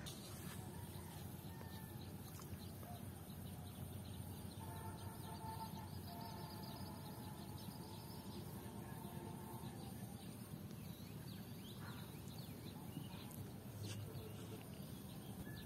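Quiet outdoor ambience with faint bird calls in the background. A run of calls goes on for several seconds in the middle.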